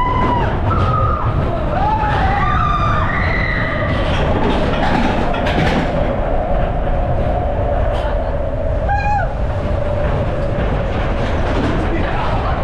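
Matterhorn Bobsleds roller-coaster car rumbling along its track, heard from on board, with a steady whine and several short high-pitched squeals.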